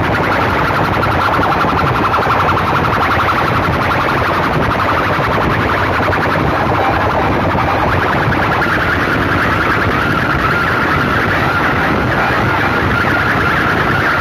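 Very loud, distorted sound blasted from a tall stacked array of horn loudspeakers, carrying a wavering high tone that grows stronger about two-thirds of the way through.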